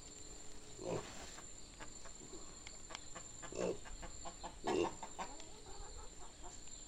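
A chicken clucking, three short calls about a second in and then twice past the middle, over a steady high insect trill.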